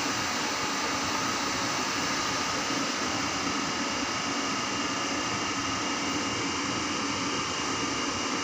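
Steady whir of an EP20 electric locomotive's cooling blowers and power equipment, a fan-like hiss with several steady tones running through it.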